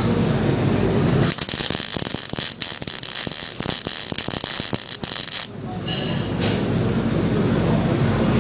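Wire-feed (MIG) welding arc crackling steadily for about four seconds as a bead is laid on steel horseshoes, starting a little over a second in and cutting off suddenly. A steady low hum runs before and after it.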